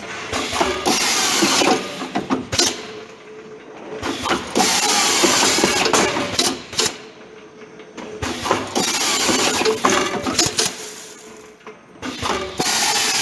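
Artikon SD-206 fully automatic double-head screwdriving machine running through its cycles: loud stretches of hiss mixed with clicks and mechanical clatter, repeating about every four seconds with quieter pauses between.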